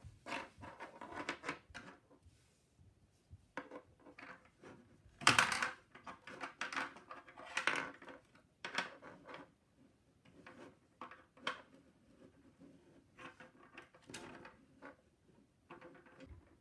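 Scattered clicks and clatters of the SmartGames Snow White plastic toy house being handled: its hinged plastic shutters snapped open and shut, and the house knocking on a wooden table. The loudest clatter comes about five seconds in.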